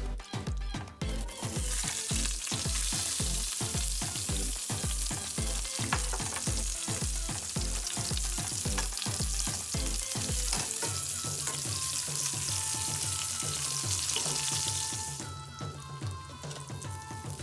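Food frying in a hot pan, a dense sizzle that starts about a second in and stops about two seconds before the end, over background music with a steady bass beat.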